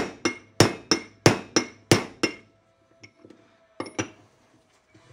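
Steel hammer tapping the end of a bolt through a Datsun truck's steering spindle, driving a tube and kingpin bushing along the shaft. There are quick ringing metal-on-metal blows at about three a second for a little over two seconds, then a pause and two lighter taps near the end.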